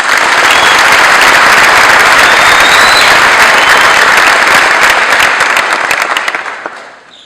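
Audience applauding, loud and steady, dying away near the end.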